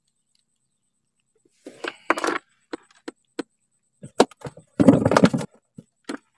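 Handling of a freshly caught fish and fishing tackle: scattered light knocks and clicks in irregular clusters, with a louder rustling scuffle about five seconds in.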